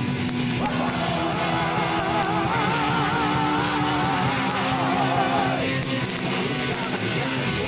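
Home-recorded demo of a rock song: electric guitars and band playing steadily, with a long wavering melody line held over them for several seconds that drops out about two-thirds of the way through.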